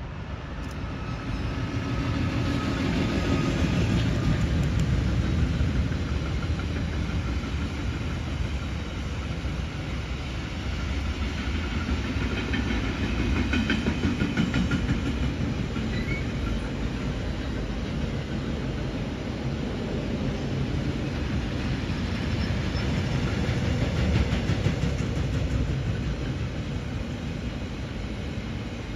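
Freight train passing close by: a continuous rumble of wagons with wheels clicking over the rail joints, swelling and easing several times.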